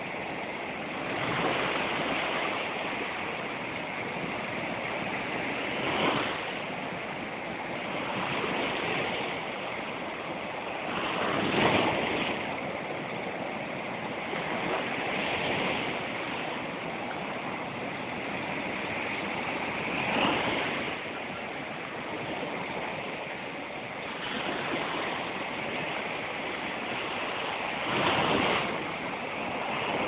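Sea surf: a steady rush of waves breaking and washing up over the sand close by, swelling louder every few seconds as each wave comes in.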